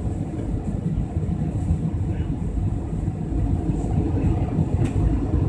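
Steady roar of engines and rushing air inside the cabin of an Airbus A320 in flight, heavy in the low end.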